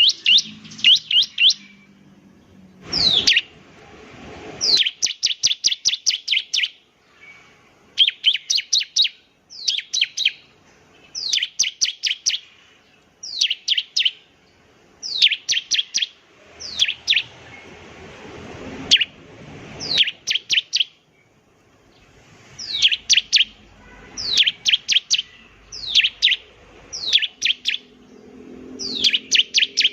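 Bar-winged prinia (ciblek) singing in repeated bursts. Each burst is a quick run of sharp, high, falling chirps, and a new burst comes every second or two.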